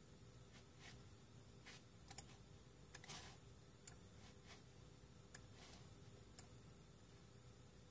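Faint computer keyboard keystrokes: about a dozen light, irregular clicks over near-silent room tone.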